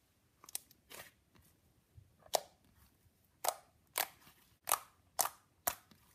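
Fingers poking and squeezing soft, fluffy cotton candy slime, giving a string of sharp wet pops as air pockets in the slime burst, about eight in all and coming faster after the first two seconds.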